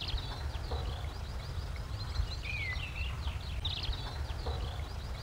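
Several birds chirping and whistling, one with a falling whistle about two and a half seconds in, over a low rumble of wind on the microphone.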